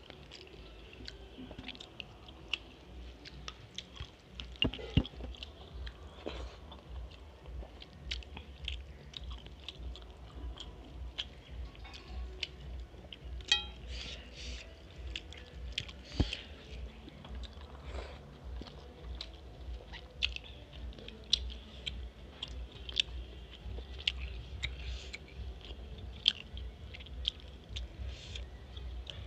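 Close-up eating sounds of rice and fish curry eaten by hand: wet chewing with frequent short mouth clicks and smacks, and fingers mixing rice on a steel plate, over a steady low hum.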